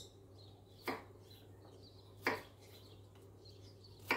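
Kitchen knife chopping an onion coarsely on a wooden cutting board: three sharp knocks of the blade on the board, about one every second and a half.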